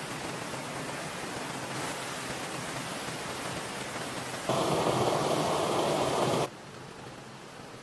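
Steady rushing of a waterfall and river. About halfway through it turns louder and fuller for two seconds, then drops to a softer, duller rush.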